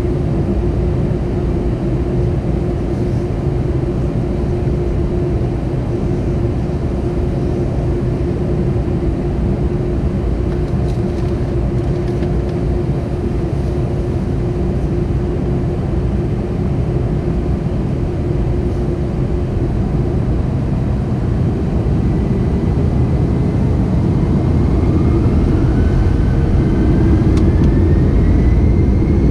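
Airbus A321 jet engines heard from inside the cabin, a steady idling hum with a constant low tone. About three-quarters of the way through, a rising whine sets in and the sound grows louder as the engines spool up.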